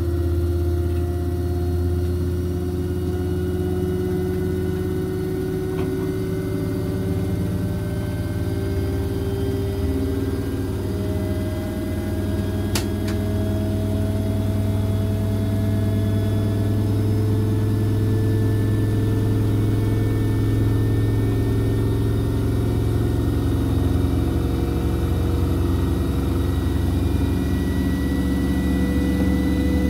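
Front-loading washing machine in its spin: the drum and motor hum and whine steadily, the pitch creeping slowly upward as the spin speed builds. A faint single tick comes about halfway through.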